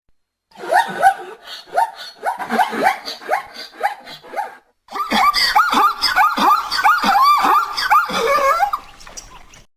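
An animal giving a rapid series of short calls, each with a quick rise and fall in pitch, in two runs with a brief break a little before halfway.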